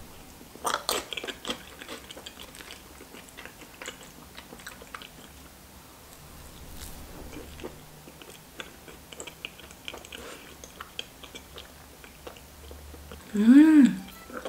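Close-up wet chewing of a sticky mouthful of s'more dip (toasted marshmallow and Nutella), with a smack about a second in and many small mouth clicks. Near the end comes a loud hummed "mmm" of enjoyment that rises and falls in pitch.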